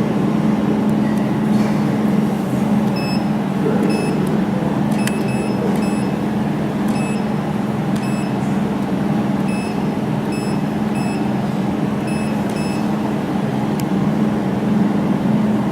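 Jewelry laser welding machine humming steadily, with a dozen or so short high beeps at uneven intervals as it is worked while welding a silver sample.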